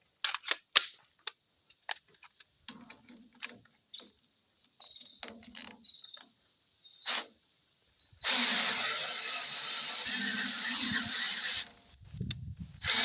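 A string of sharp clicks and knocks from handling a cordless drill, then the drill running steadily for about three and a half seconds, turning a 3/8 thread tap. It starts again near the end.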